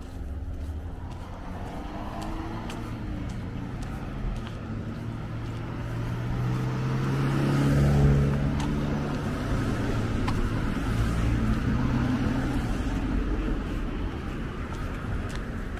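A car passing close by on the street: engine and tyre noise build to a peak about halfway through, then fade, with further traffic going by after it.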